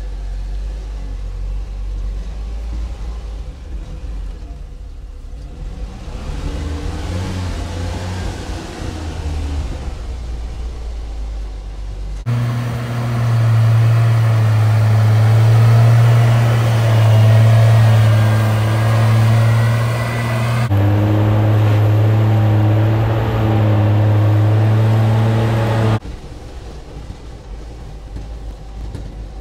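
A 1978 Bedford M Series 4x4 truck's petrol engine running under load as the truck drives off-road. It is first heard from inside the cab, then becomes loud and close about 12 seconds in as the truck climbs past, and drops back to a quieter drone near the end. The owner suspects the ignition timing is a bit retarded.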